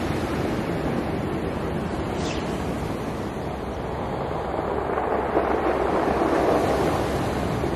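Ocean waves breaking and the water rolling back down a rocky shore, a steady wash that swells to its loudest about two-thirds of the way through and then eases.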